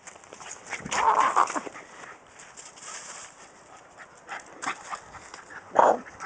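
A dog making sounds in rough play, with a louder burst about a second in and a short, sharper one near the end.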